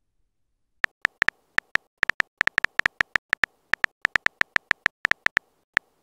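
Phone keyboard typing sound: a quick, uneven run of short clicky beeps, one per keystroke, as a message is typed out. The clicks start about a second in and stop just before the end.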